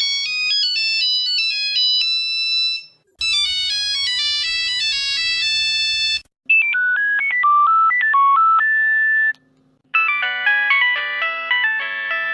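Nokia mobile phone ringtones played in succession: four short electronic ringtone melodies, each about three seconds long and cut off with a brief gap before the next. The first two are high and thin, the later ones lower and fuller, with several notes at once.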